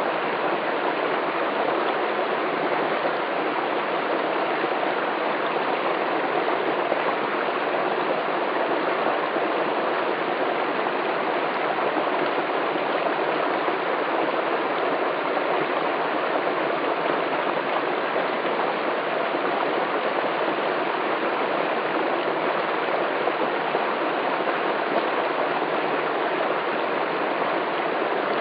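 A small forest stream cascading over rocks into a pool, with a steady, even rush of running water.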